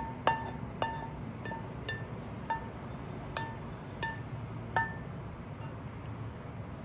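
A wooden spatula knocking against the rim of a frying pan while scraping food out, about eight light ringing taps at one pitch, irregularly spaced, stopping about five seconds in.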